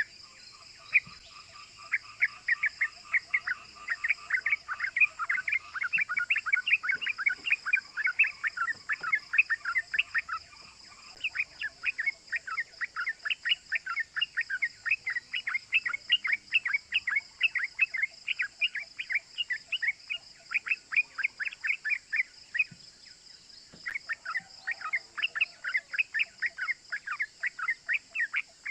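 Sooty-headed bulbul singing a fast, unbroken string of short 'cuk cuk' chirping notes, with a brief break about 22 seconds in before it resumes.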